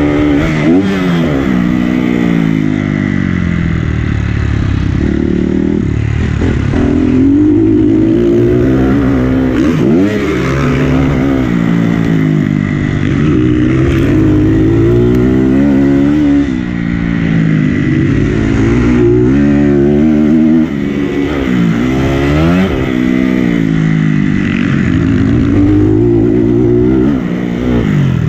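Motocross bike engine at full race pace, its pitch climbing and falling again and again as the rider opens the throttle down the straights and backs off into the turns.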